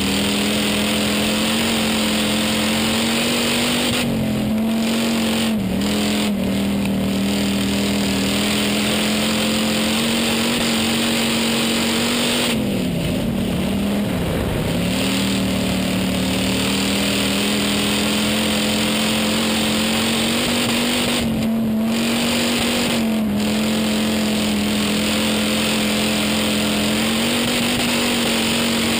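Hobby stock race car's engine heard from inside the cockpit, running hard at a fairly steady pitch under a constant rush of noise. Its pitch dips briefly about six seconds in, more deeply around halfway through, and slightly again near twenty-two seconds, as the throttle eases and comes back on.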